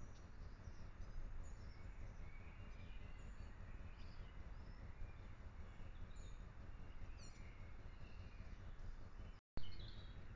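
Scattered short bird chirps and calls over a low, steady background rumble. The sound cuts out briefly near the end, then resumes with more chirps.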